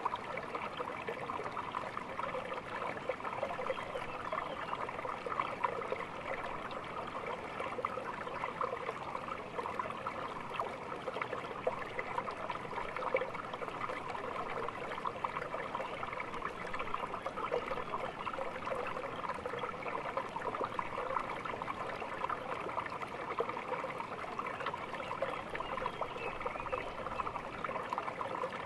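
Small stream trickling and babbling steadily over stones, a continuous water sound full of small gurgles and splashes.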